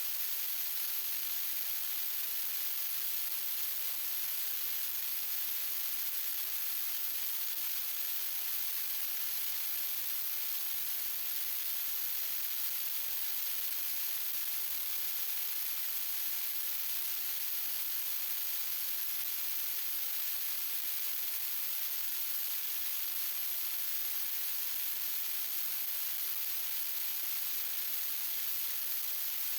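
Steady electronic hiss like static, strongest in the highest pitches and unchanging throughout, with no saw or other sound in it.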